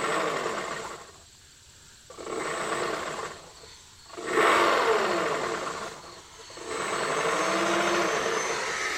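Model-aircraft motor running in four separate bursts, each one to two seconds long, with its pitch winding up and down before it cuts out. The motor is taken to be failing, with bad bearings suspected.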